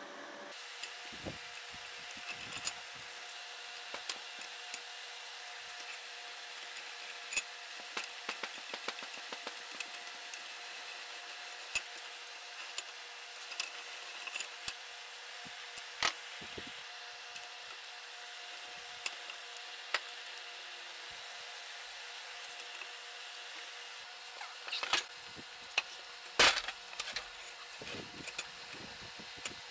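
Scattered metal clicks, taps and clanks from the parts of a Reed 208 bench vise as they are handled and fitted, with a cluster of louder knocks near the end, over a steady hiss.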